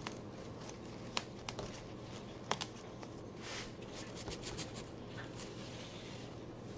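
Quiet handling of plant packaging being opened: a few sharp clicks and a soft rustle about halfway through.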